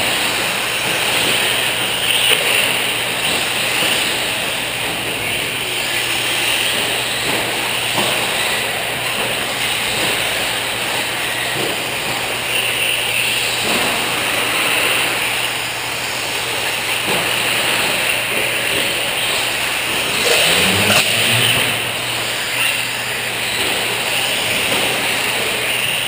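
Several radio-controlled 4WD short course trucks racing on a dirt track: a steady mix of motor whine and tyre noise that swells and fades as the trucks pass.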